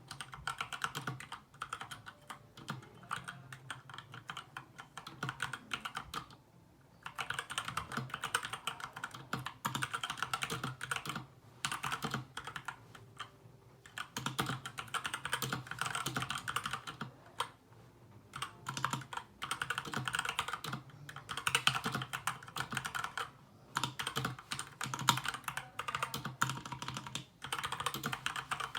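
Fast typing on an SK61 60% mechanical keyboard with lubed Gateron Brown tactile switches and pudding keycaps, in runs of a few seconds with brief pauses between them.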